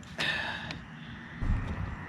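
A man's short, breathy sigh just after the start, followed about a second and a half in by a low rumble.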